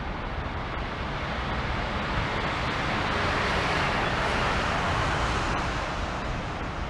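City road traffic: a steady rush of tyre and engine noise, with one vehicle passing close by, rising to a peak about halfway through and fading again.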